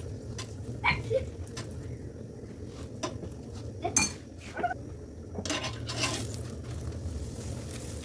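Kitchen clatter: dishes and metal utensils clinking and knocking in separate strokes about a second apart, with a longer scraping rustle about two-thirds of the way through.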